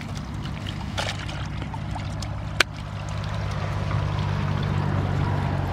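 Water trickling and small fish flapping in a lifted mesh net, with two sharp clicks. Under it a small engine runs with a steady low hum, growing louder toward the end.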